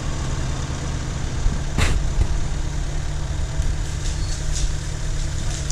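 Off-road car's engine idling steadily while the vehicle sits stuck in mud, with one sharp knock about two seconds in.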